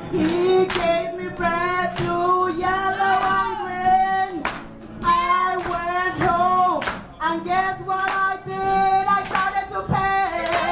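A woman singing into a handheld microphone, holding long sustained notes with short breaks between phrases, while people around her clap along.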